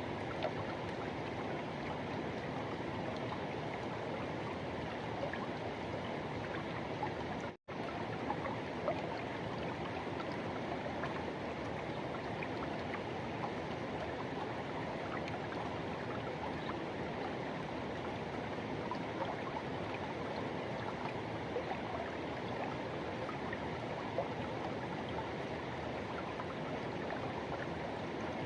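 A forest river rushing and gurgling in a steady, even wash. The sound cuts out for an instant about eight seconds in.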